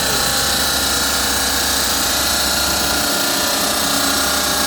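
Stone-cutting saw with a diamond blade running steadily, a continuous high whine over dense hiss, as used for cutting marble.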